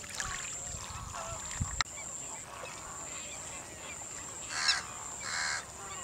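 A flock of waterbirds keeps up a goose-like honking chatter, with two louder honks about four and a half and five and a half seconds in. A thin steady high-pitched tone runs underneath.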